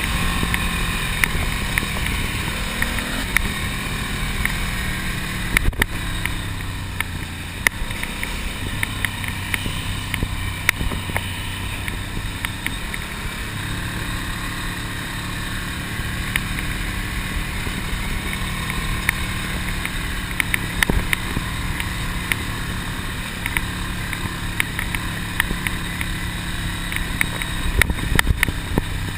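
Ducati Monster's air-cooled L-twin engine running under way, its pitch shifting a little, with wind rushing over the microphone and frequent short knocks and buffets.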